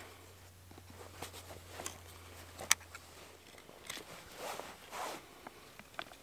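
Knife blade shaving curls off a piece of wood: a run of short scraping strokes, with one sharp click about halfway through.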